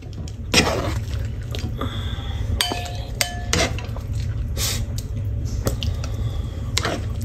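A plastic serving spoon scraping through thick, oily curry in a nonstick wok and knocking against the pan and a ceramic bowl, roughly once a second, with wet squelching and a brief ringing clink about three seconds in. A low steady hum lies underneath.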